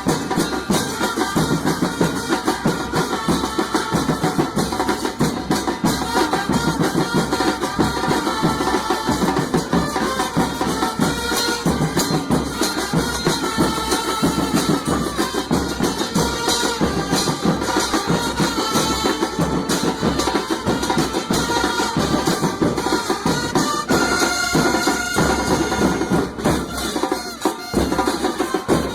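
Music with drums and percussion, playing steadily and densely over many held tones.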